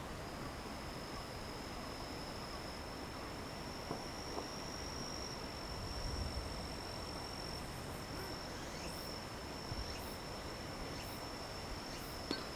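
Insects singing in the late-summer night chorus: one steady, high-pitched continuous trill, joined about halfway through by a higher chirp repeating roughly once a second.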